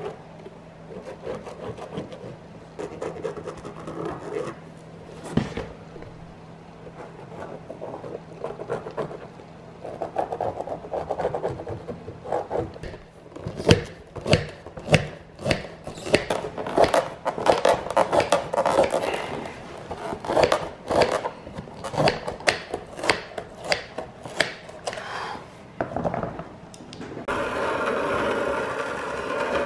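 Metal scribe scratching along thick vegetable-tanned Baker sole leather as a shoe's outline is traced. About halfway through, aviation snips cut the sole blank out of the leather with repeated sharp snips, one or two a second. Near the end a rotary-blade sole-cutting machine starts running steadily.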